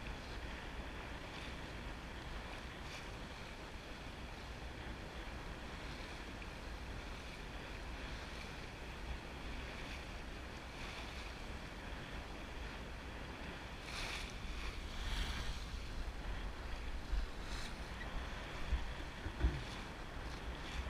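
Water rushing and splashing along the hull of a Drabant 27 sailboat moving under sail, with steady wind rumble on the microphone. About two-thirds of the way through, the spray grows louder for a couple of seconds, followed by a few short thumps near the end.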